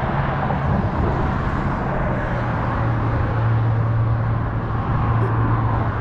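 Road traffic: a vehicle's low engine hum over the road noise of passing traffic. The hum drops slightly in pitch about two seconds in and is strongest in the middle.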